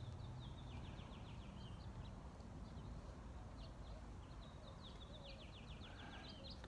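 Birds singing: repeated runs of short, quickly falling high notes, over a faint steady low rumble of background noise.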